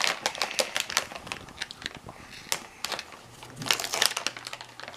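Plastic bag of gummy bears crinkling as it is handled, in irregular sharp crackles that are densest a little past the middle.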